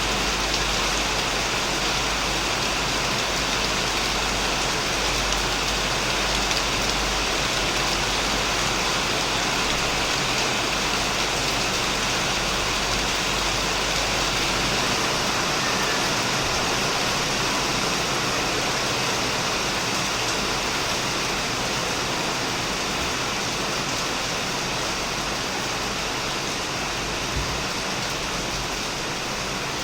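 Steady heavy rain falling on a shed roof and plants, an even, continuous hiss of drops.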